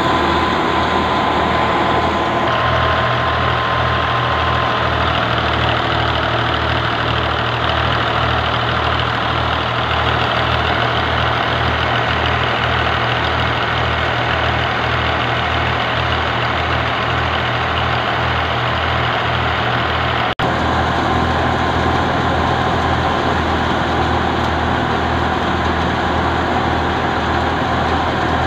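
Tractor-driven thresher running while threshing mustard: the tractor's diesel engine runs under load with a steady pulsing beat, and the thresher's drum and belt-driven fan add a steady whine on top. There is a brief dropout about twenty seconds in.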